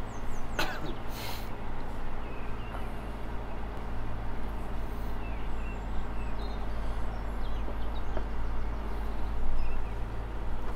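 Sailing yacht's auxiliary engine running steadily under way: a constant low drone, with a hiss of wind and water around it.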